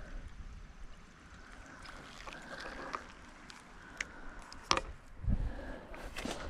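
A shallow creek running, with scattered sharp clicks and a few low thumps of handling or steps close by. The loudest click comes about two-thirds of the way through.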